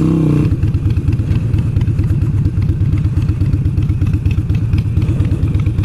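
Harley-Davidson V-twin engine running at low revs with a steady, lumpy beat, heard from on the bike as it rolls slowly.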